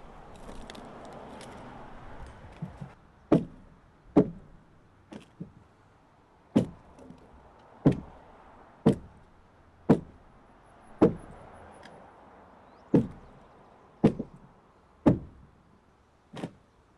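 A hand carving tool chipping into the wooden hull of a dugout canoe: about a dozen sharp strikes, roughly one a second.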